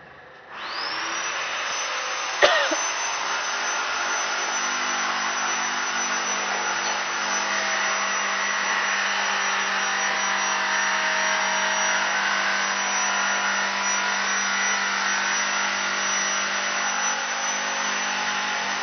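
A motor-driven machine starts abruptly about half a second in, spinning up quickly, then runs loud and steady. A sharp click sounds about two seconds in.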